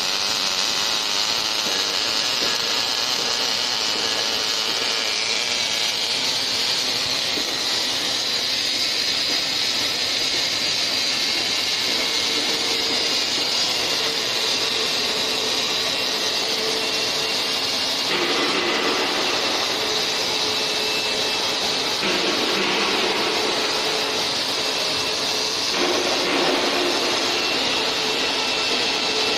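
MIG welding arc from an automatic longitudinal seam welder, hissing steadily as the torch runs along a cylinder's seam, its tone shifting slightly a few times in the second half.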